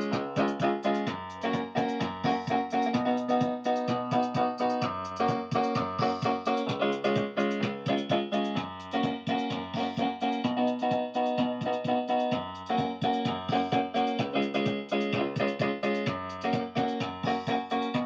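Electronic keyboard played in an electric-piano voice: quick, evenly struck chord notes over a bass line that changes about every two seconds.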